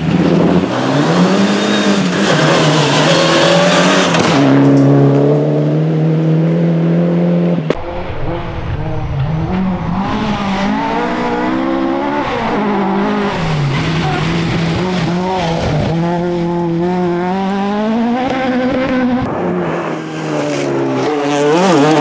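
Rally car engines driven hard on a gravel forest stage, revving high and dropping back through gear changes, with tyres scrabbling on loose gravel. The sound switches abruptly to another car about eight seconds in.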